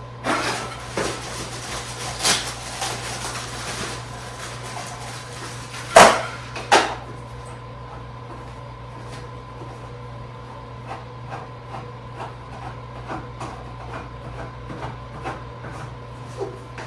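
Sofa legs being screwed on by hand: small scraping and clicking of the threads and of handling, with two sharp knocks about six seconds in, over a steady low hum.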